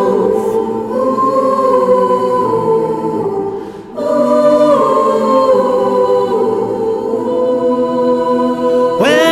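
Small mixed choir singing a cappella, holding long sustained chords. The sound dips briefly just before four seconds in, and a new chord follows.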